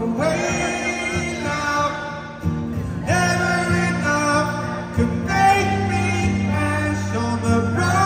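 A man singing a slow song live, accompanying himself on acoustic guitar, in sung phrases over sustained chords.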